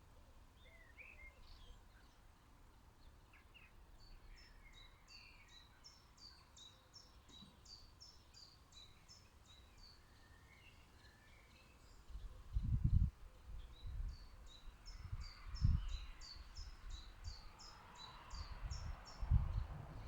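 Small garden birds chirping, with a song of rapid repeated high notes twice. From about twelve seconds in, irregular low thumps and rumbles, the loudest sounds.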